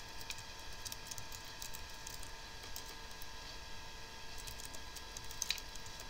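Computer keyboard being typed on in short runs of key clicks, over a steady whine of several tones that the computer itself is making.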